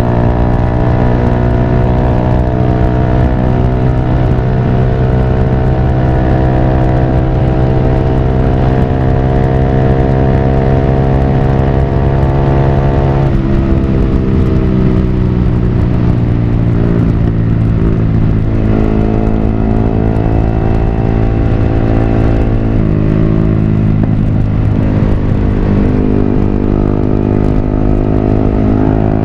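Yamaha R15 V3's single-cylinder engine through a Villan Pro1 full-system exhaust while riding, with a fairly mellow note. The pitch creeps slowly upward and drops three times, from about halfway through.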